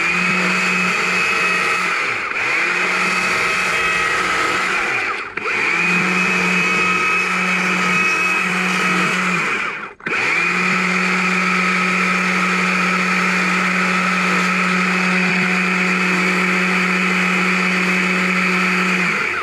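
Chainsaw with a narrow carving bar running at full speed while it cuts into a small log, rounding out the head of an owl carving. The steady whine eases off briefly about two and five seconds in, nearly stops about halfway through, then runs on evenly and cuts off at the end.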